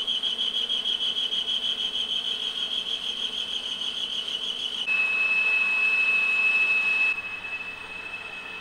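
Metal lathe turning a stainless-steel workpiece, with a steady high-pitched whine over the running machine. About five seconds in, the whine drops a little in pitch, turns purer and louder, then gets quieter about two seconds later.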